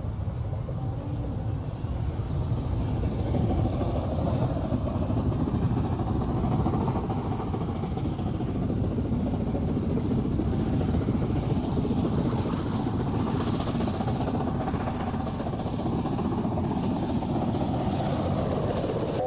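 BR Standard three-cylinder Pacific 71000 Duke of Gloucester working hard at the head of a train. Its exhaust and running gear make a loud, steady, continuous noise.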